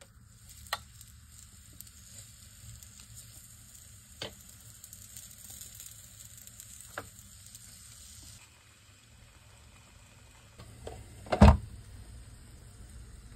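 Ricotta batter sizzling on the hot plates of an electric waffle iron, a steady hiss that weakens about eight seconds in, with a few light clicks of a spoon against the plate. A loud knock comes near the end.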